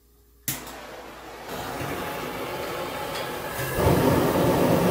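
Propane burner under a brew kettle being lit for the boil: a sharp click, then a rushing gas-and-flame hiss that grows in two steps into a louder steady roar about four seconds in.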